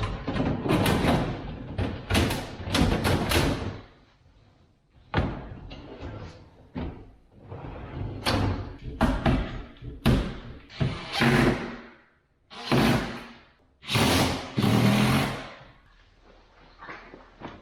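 Music over irregular knocks, thumps and slams of kitchen cabinet doors and panels being fitted.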